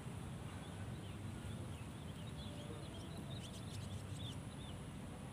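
Small birds chirping in a quick run of short calls, busiest from about one and a half to four and a half seconds in, over a steady low rumble.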